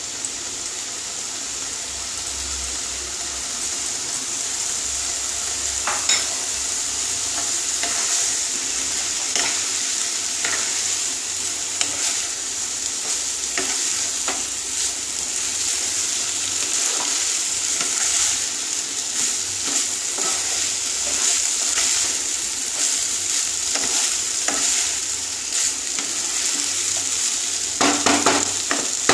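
Boiled foxtail millet (kaun) rice and vegetables frying in a hot nonstick pan while being stirred with a wooden spatula: a steady sizzling hiss with frequent soft scrapes and taps of the spatula on the pan, and a few louder knocks near the end.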